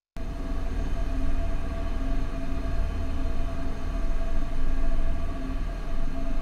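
Test recording of the noise radiated by a pipe wrapped in 1-inch Micro-Lok HP fiberglass insulation with mass-loaded vinyl jacketing: a steady low rumble with a faint hum. It starts abruptly just after a brief silence.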